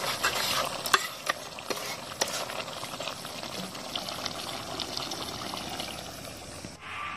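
Chicken curry bubbling and sizzling in a steel kadai over a wood fire while a metal ladle stirs it, with a few sharp clicks in the first couple of seconds. The sound drops away just before the end.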